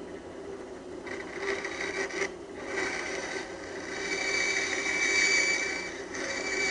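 Bandsaw blade cutting through a wooden board along a curve, a rasping cut that comes in several stretches with short breaks, starting about a second in, over the steady hum of the running saw.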